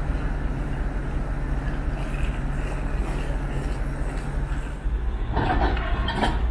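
TEP70 diesel locomotive idling with a steady low drone. About five seconds in, the drone gives way to a louder, rougher noise with some clicks.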